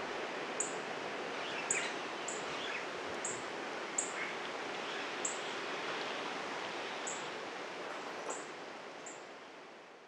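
Outdoor ambience: a steady hiss with a short, high chirp repeating every half second to a second, fading out near the end.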